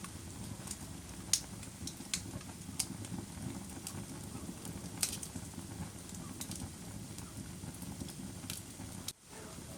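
Wood fire crackling in a fireplace: a steady low rumble of flames with sharp pops and snaps scattered irregularly through it, several of them louder. The sound drops out for a moment near the end.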